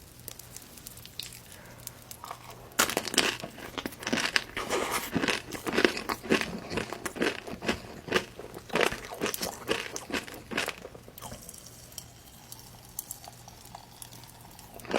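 Close-miked eating: crisp food being bitten and chewed with loud, dense crunches. The crunching starts about three seconds in and dies down after about eleven seconds.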